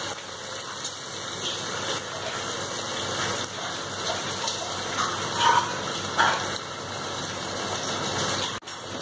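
Hot oil sizzling steadily in a pressure cooker under freshly added raw potato cubes and cut cowpea pods. The sound drops out briefly near the end.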